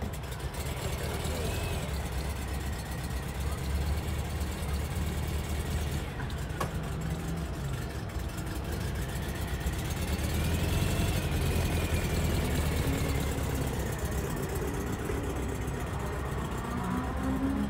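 Air-cooled flat-four engine of a vintage Volkswagen splitscreen (T1) bus running as the bus drives slowly past and then away, louder in the middle of the pass.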